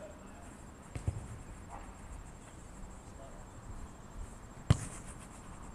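A football struck hard: one sharp thud a little past the middle, with a couple of lighter knocks of the ball about a second in.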